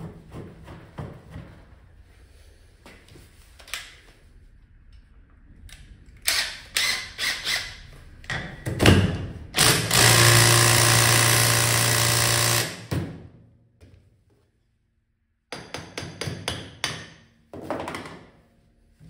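Metal tools clinking and knocking on a scooter's CVT pulley assembly, with a power tool running steadily for about three seconds around ten seconds in, then more sharp knocks.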